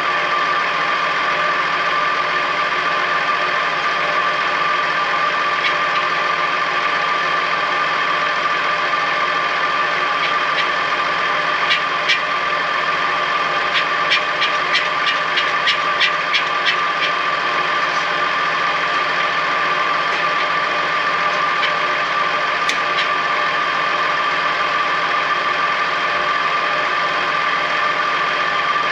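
Tractor engine running steadily at an even pace. About halfway through, a quick run of clicks or rattles sounds over it, about four a second for a few seconds.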